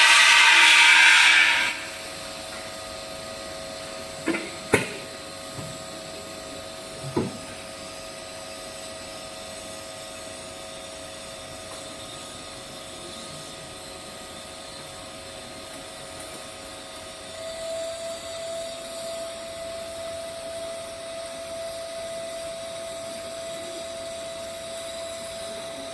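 A loud hiss cuts off about two seconds in. It leaves a steady machine hum with a thin whine, broken by a few short knocks a few seconds later.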